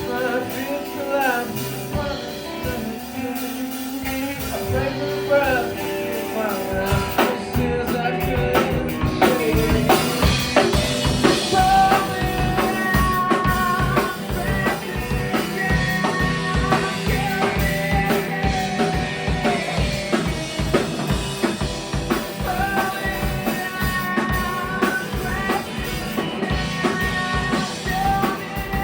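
Live band playing an indie-punk song with a drum kit; the drums come in fully about six seconds in and keep a busy, steady beat, with held melody lines over them from about halfway.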